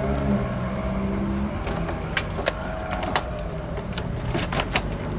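Car engine running steadily at low revs, with a few sharp clicks.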